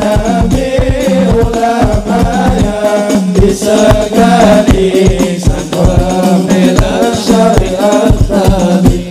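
Islamic devotional song (sholawat) sung by voices in unison over percussion with rattles and a fast, steady drumbeat.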